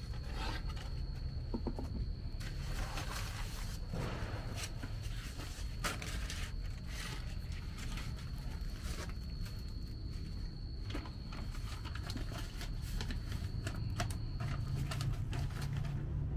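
Banana leaves rustling and a stone pestle scraping in a stone mortar (cobek), in short irregular strokes, over a steady low hum. A thin steady high whine runs underneath and stops shortly before the end.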